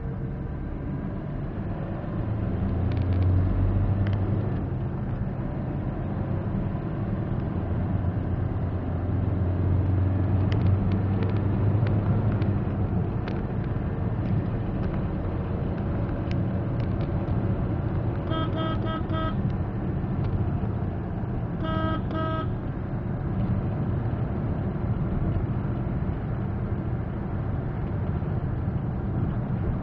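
Steady engine and road rumble inside a moving Maruti Suzuki Swift. Past the middle, a car horn gives two bursts of short toots a few seconds apart, and toots again right at the end.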